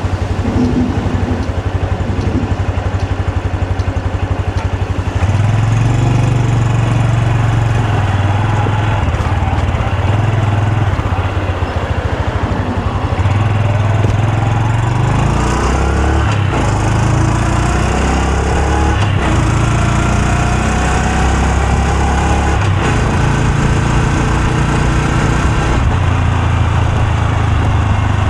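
Honda Super Cub C125's air-cooled single-cylinder four-stroke engine and exhaust running while riding, the engine note rising and falling several times as it accelerates and eases off.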